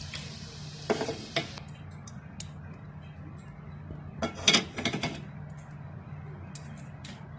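Kitchen clatter of a wok and utensils: two short bursts of clinks and knocks, about a second in and again about four and a half seconds in, over a steady low hum.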